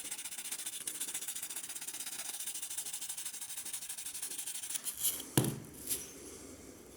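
Hand sanding with rapid, even back-and-forth strokes, typical of rubbing rust and grime off a carpet knife's parts during restoration. The strokes stop about five seconds in, followed by two sharp knocks.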